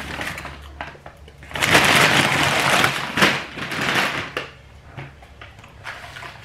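Paper fast-food bag rustling and crinkling as it is handled and unpacked. It is loudest for about a second and a half from around a second and a half in, then turns to a few lighter handling clicks.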